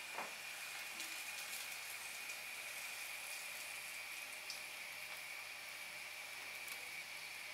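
Sour-cream pancake batter sizzling faintly and steadily in a hot buttered stainless-steel frying pan as the pan is tilted to spread it, with a light clink of the ladle against the pan at the start.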